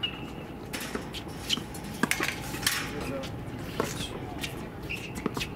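Tennis balls being struck by rackets on the courts: a series of sharp pops at irregular intervals, some near and some farther off.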